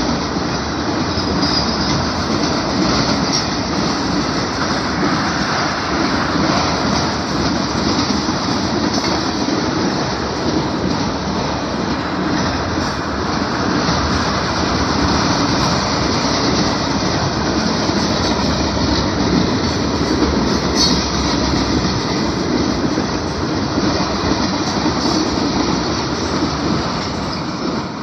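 Freight train of enclosed autorack cars rolling past: the steady rumble and rattle of steel wheels on the rails, beginning to fade at the very end as the last car goes by.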